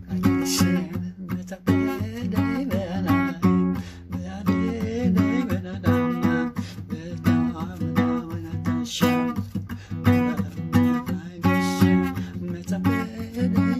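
Acoustic guitar music: chords played in a steady, regular rhythm.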